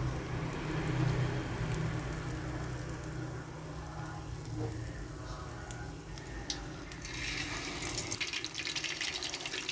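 Batter-coated eggplant-and-pork rolls frying in hot oil in an aluminium pan: a steady bubbling sizzle that turns into a louder, brighter crackle about seven seconds in, as another roll goes into the oil.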